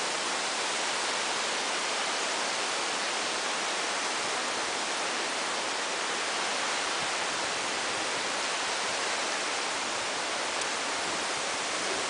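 Waterfall crashing down onto rocks and into a pool below: a steady, even rush of falling water that does not change.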